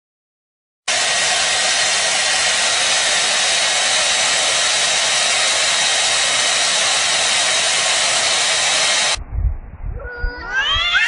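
A steady, loud hiss that starts about a second in and cuts off abruptly some eight seconds later, followed near the end by a cat meowing once, its pitch rising then falling.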